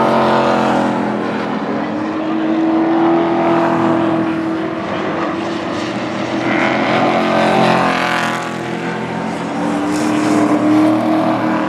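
Pro Truck race trucks' engines running at race speed around the oval. The pitch rises and falls, and the sound swells several times as trucks come past.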